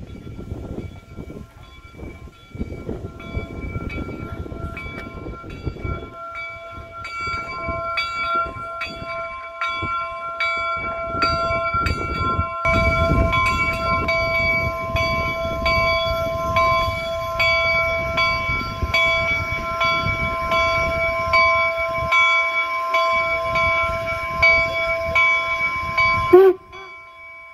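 Replica Union Pacific No. 119 steam locomotive's bell ringing steadily, about three strikes every two seconds, over the low rumble of the locomotive moving slowly along the track. The rumble grows louder about halfway through as the engine comes close, and the sound cuts off suddenly near the end.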